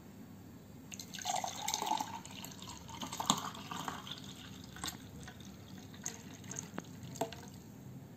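Thick dates milkshake poured from a mixer jar into a glass: a splashing pour starts about a second in, then thins to scattered drips as the glass fills.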